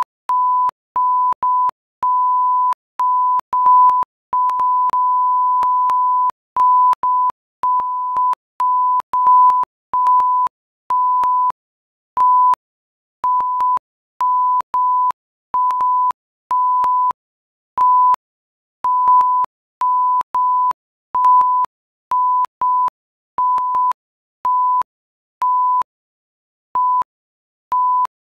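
Electronic beep: a single steady pitched tone keyed on and off in an irregular run of short and longer beeps, the longest held for about two seconds.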